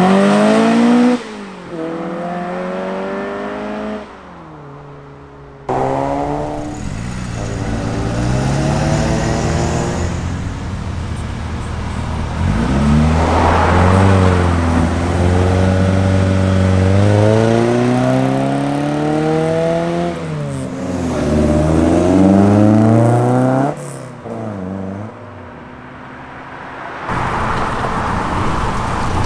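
Several classic Ford Escorts pulling away one after another, among them a 1990s Escort hatchback, a Mk1 and a Mk2. Each engine's note climbs as it accelerates and drops at the gear changes, and the sound cuts abruptly from one car to the next.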